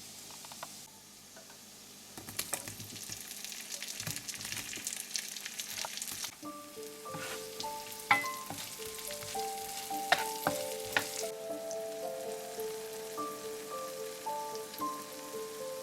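Food sizzling and crackling in hot fat in a frying pan, starting about two seconds in, with a few sharp ticks. Soft background music with stepped melodic notes comes in about halfway through.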